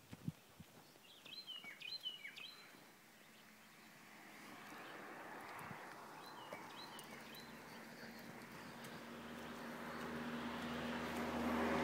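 A small songbird chirps in two short runs, in the first half and again about six seconds in. Meanwhile a car approaches on the road, its engine and tyres growing steadily louder through the second half until it is the loudest sound.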